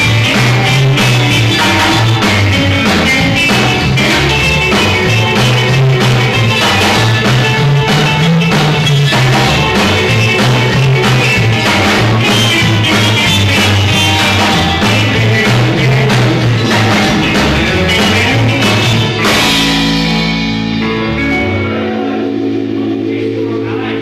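Live band playing amplified rock and roll, with an upright bass line under guitar and drums. About twenty seconds in the drums stop and the last notes ring out.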